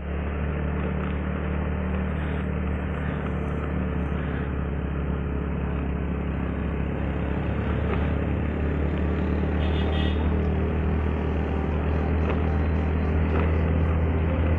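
Scooter engine running steadily at riding speed, heard from on board with continuous wind and road noise over the microphone. The loudness rises slightly toward the end.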